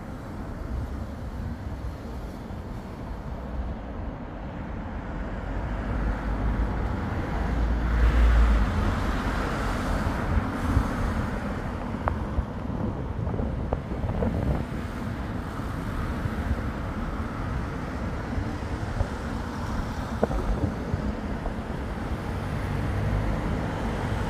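Wind rumbling on the microphone over the steady noise of road traffic, swelling to its loudest about eight seconds in.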